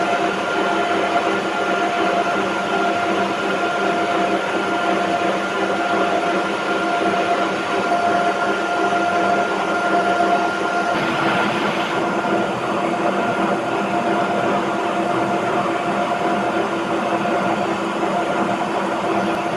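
Gear hobbing machine running, its hob cutting teeth into a tin bronze gear blank: a steady mechanical drone with a steady whine, shifting slightly about eleven seconds in.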